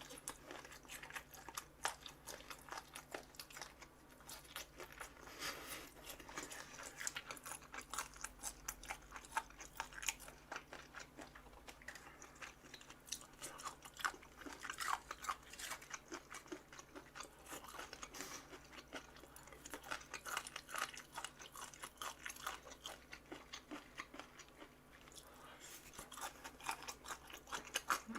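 Close-up chewing of crunchy pork cartilage (odolppyeo): rapid, repeated crisp crunches as the cartilage is bitten and ground between the teeth.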